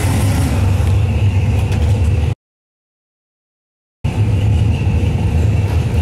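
Hot rod and custom car engines running with a steady low rumble. The sound cuts out completely for under two seconds midway, then the same rumble resumes.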